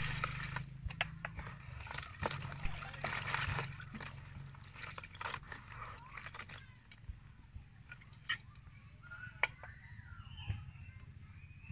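Water poured from a plastic dipper into a plastic basin holding insects, rushing for the first few seconds. It is followed by hands sloshing and rubbing the insects in the water to wash them, with small splashes and clicks against the basin.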